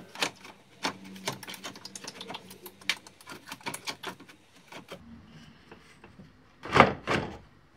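Plastic cooling-fan shroud being handled and pushed into its clips at the radiator: a run of quick, irregular clicks and taps, then two loud knocks close together near the end as it is pressed home.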